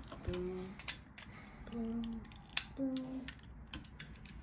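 Small clicks and snaps of hard plastic toy parts being folded and pegged together on a Tobot transforming robot. A child makes three short hums among the clicks.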